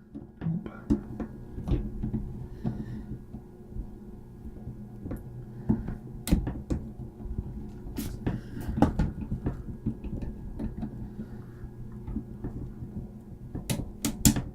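Scattered clicks and knocks of hands working at a stubborn zip tie inside a desktop 3D printer's frame, with a few sharper knocks near the end, over a steady low hum.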